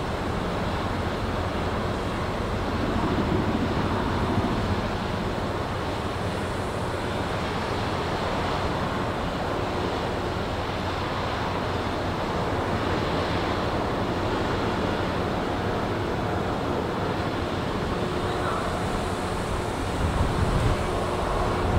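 Steady rumble of a Ro-Ro passenger ferry's engines and propeller wash as it manoeuvres close to the quay, with a faint steady hum, water churning and wind on the microphone.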